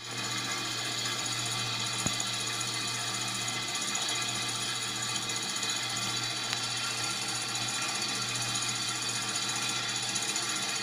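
Small hot-air Stirling engine running steadily at speed, its flywheel and linkage making a fast, even mechanical whirr while it drives a tiny generator that lights an LED.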